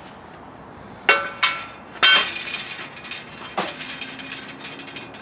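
A steel plate knocking against the slats of a steel welding table as it is handled and set down: three sharp metallic clanks with ringing between one and two seconds in, the last the loudest, then a lighter clank about three and a half seconds in.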